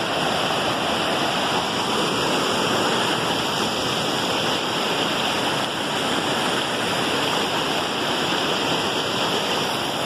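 Whitewater river rapids rushing over rocks: a steady, even rush of water with no break.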